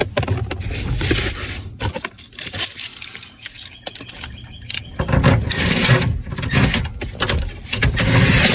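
A hand wrench driving two 7 mm bolts in snug under a pickup's dash: rapid clicking and scraping in two spells, one at the start and one from about halfway to the end.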